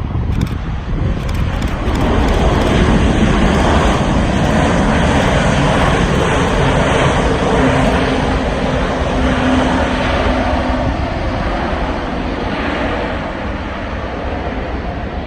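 Jet engine noise from a Boeing 787-10 landing, a broad rush that swells over the first two seconds and holds loud with a steady hum in the middle. It then slowly fades over the last few seconds.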